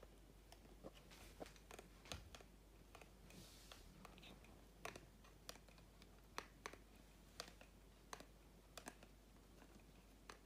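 Near silence broken by faint, irregular clicks, a Persian cat's mouth nibbling and licking a plastic joke meat-cleaver prop.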